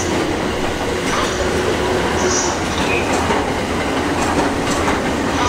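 E217 series electric train running over the station's points, its wheels rumbling and clicking over rail joints. A brief high wheel squeal comes about halfway through.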